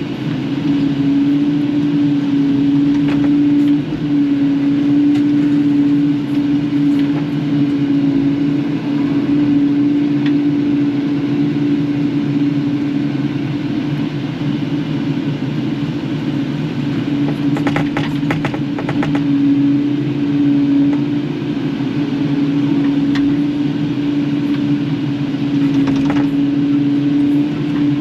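Kubota KX080-4 excavator running steadily at working speed, a constant engine and hydraulic hum, with a few metal clanks, a cluster of them a little after halfway, as scrap is handled.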